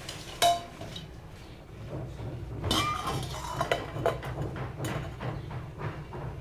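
Stainless steel kitchenware clinking as a steel plate is set on a steel pot of tea as a lid. There is one ringing clink about half a second in, then a run of metal knocks and clinks in the middle, over a steady low hum.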